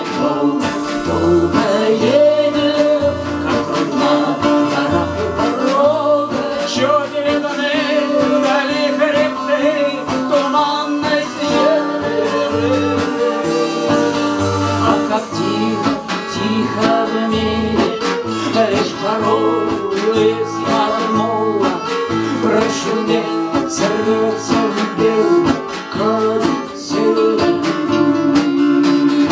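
Live acoustic folk band playing a passage between sung verses: a strummed acoustic guitar with a steady bass pulse about once a second and a violin melody above it.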